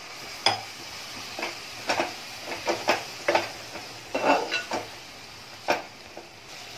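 A long steel ladle stirring jackfruit seeds through a wet masala gravy in a metal pot. It scrapes and clinks against the pot at irregular intervals, about once a second, over a faint steady sizzle.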